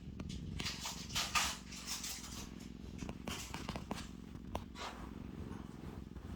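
Domestic cat purring steadily, with a few brief rustles and small clicks over the purr.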